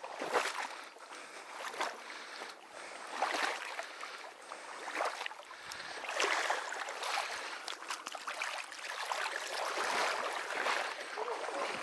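Water sloshing and splashing around rubber wading boots as a person wades step by step through a shallow, duckweed-covered marsh ditch, with a swell of sloshing about every second or so.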